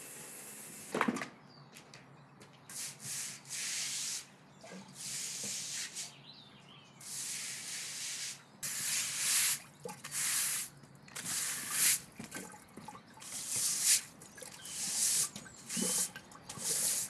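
A pressure washer's jet hissing steadily on wet paving stones, cutting off with a knock about a second in. Then a stiff-bristled yard brush scrubs the wet flagstones in short, irregular strokes, one or two a second.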